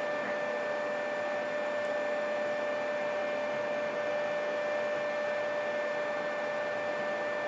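Steady background hum and hiss with a constant high whine, unchanging throughout; no distinct clicks or knocks.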